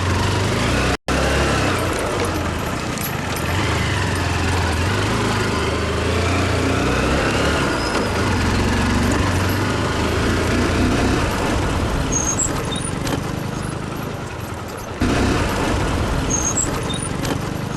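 Motorcycle engine running steadily while being ridden over a rough dirt road. The sound drops out for an instant about a second in and jumps abruptly at about fifteen seconds.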